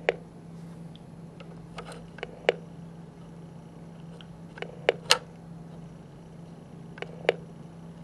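Steady low electrical hum with about nine sharp clicks at irregular intervals, several coming in close pairs. The loudest are right at the start and about five seconds in.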